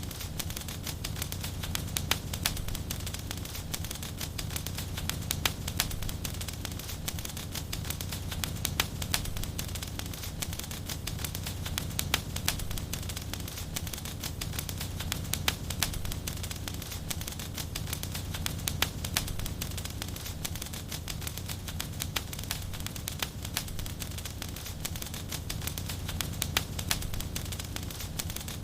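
Wood fire burning steadily in a fireplace, with frequent sharp crackles and pops over a low, even rumble of the flames.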